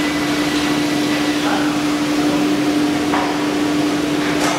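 Koch Windoor 510 CNC machining centre running with a steady electric hum, with two short sharp clicks about three and four and a half seconds in.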